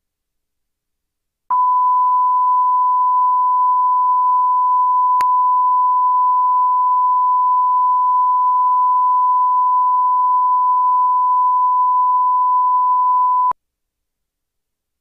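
Broadcast line-up test tone played with colour bars at the head of a programme tape: one steady, unwavering pure tone that starts abruptly, holds for about twelve seconds, then cuts off. A faint click sounds about five seconds in.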